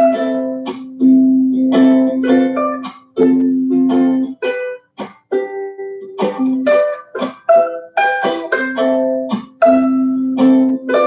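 Background music played on plucked strings: a quick run of strummed chords and picked notes over a held low note.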